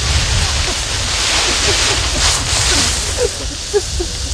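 Steady hiss of water being sprayed to fake rain, strongest in the middle, over a low rumble.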